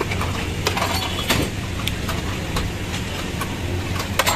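A steady low machine hum, with sharp metal clinks every half second or so as steel skewers are turned and knocked together on a charcoal grill.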